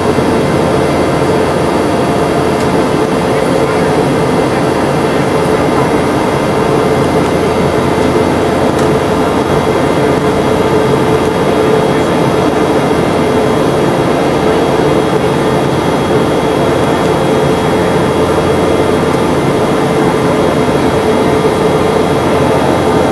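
Boeing 717-200's Rolls-Royce BR715 turbofan heard inside the cabin from a window seat right beside the rear-mounted engine. It makes a steady jet drone with a strong constant hum, unchanging throughout.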